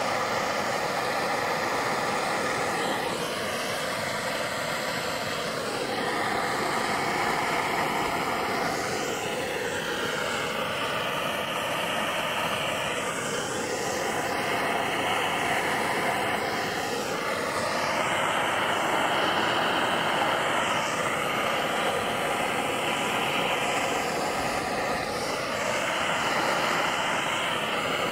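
Push-button handheld gas torch burning with a steady hissing rush as its flame heats a titanium muzzle brake to colour it; the hiss slowly swells and changes tone as the torch is moved about.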